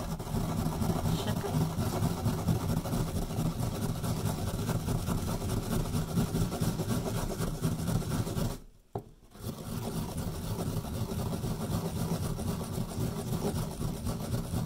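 A peeled carrot being grated by hand on the fine side of a flat metal grater: a rapid, steady scraping rasp of quick strokes, with a brief pause a little past halfway.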